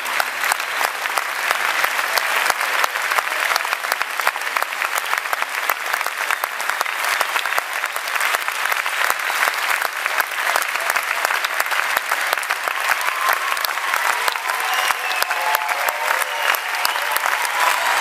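Concert audience applauding: dense, steady clapping from a large crowd.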